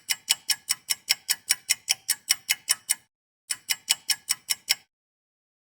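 Fast clock-like ticking, about five sharp ticks a second. It breaks off about three seconds in, resumes half a second later and stops shortly before the end.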